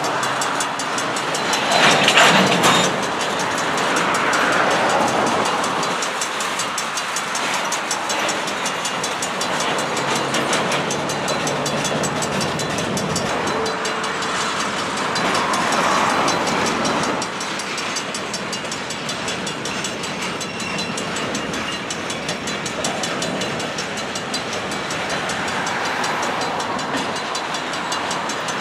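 A long mixed freight train's cars, gondolas, boxcars and tank cars, rolling steadily past on steel wheels, with a few louder swells along the way.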